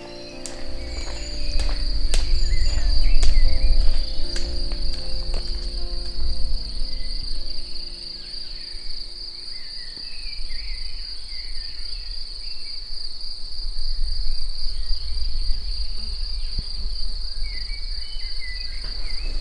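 A steady, high-pitched insect trill over a deep low rumble. Soft, low musical notes sound in the first half, and short bird chirps come now and then in the second half.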